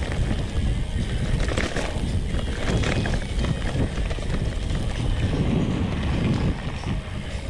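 Wind buffeting the microphone over the low rumble and scattered rattles of a Priority 600X bike rolling along a dirt trail.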